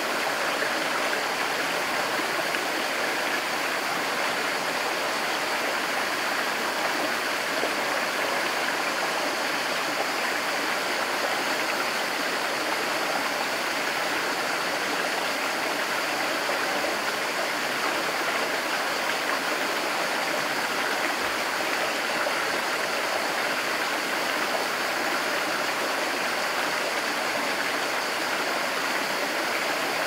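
Small forest stream running over rocks in shallow cascades: a steady, even sound of flowing water.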